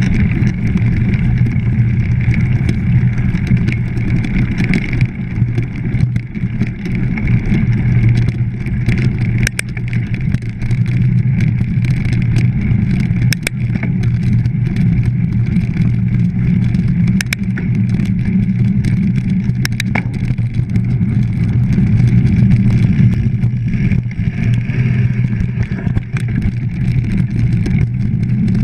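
Mountain bike ridden over a grass and dirt trail: a steady low rumble of tyres and wind on the microphone, with a few sharp clicks and knocks from the bike.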